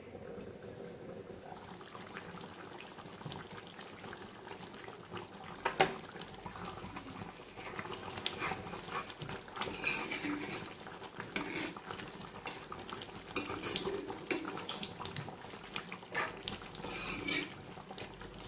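Mutton curry bubbling under a glass lid, then a sharp clink about six seconds in. From about eight seconds on, a metal ladle scrapes and clinks against the pan as the thick curry is stirred.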